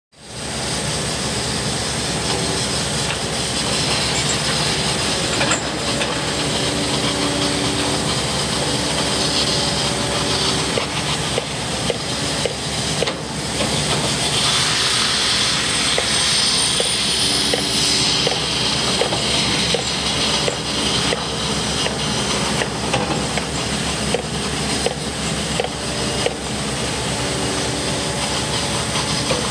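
Hitachi EX-series hydraulic excavator running steadily, its diesel engine joined by a pitched hydraulic drone that comes and goes as the boom and bucket move. Water splashes and hisses as the bucket works in the water, most strongly about halfway through.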